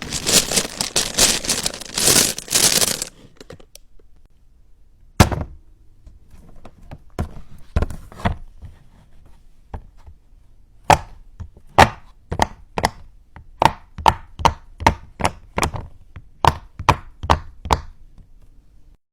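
Simple dimple fidget toy being popped: a few scattered sharp clicks, then a quick run of about sixteen clicks, roughly two a second, as the bubbles are pushed through one after another. It opens with a few seconds of rustling handling noise.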